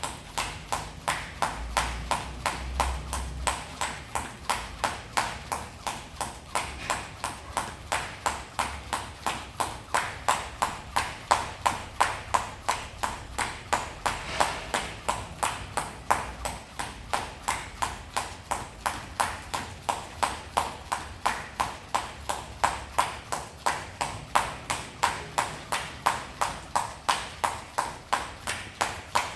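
Jump rope turning steadily, the rope slapping the floor in an even rhythm of about two to three slaps a second.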